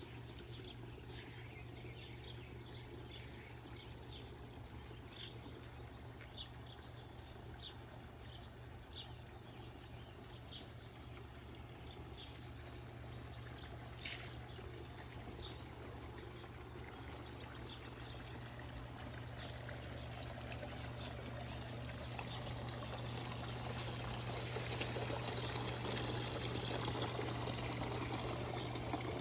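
Water trickling and splashing from a tiered garden fountain, growing louder toward the end as it comes closer. Birds chirp in the first half, over a steady low hum.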